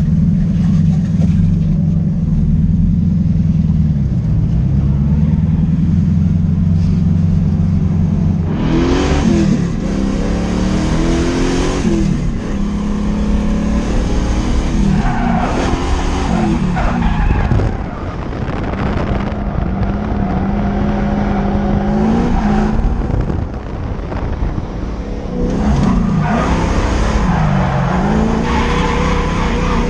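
LS1 V8 in a BMW E36 M3 running at steady high revs, dipping briefly about four seconds in. From about nine seconds in it revs up and down again and again as the tyres skid and squeal through drifts.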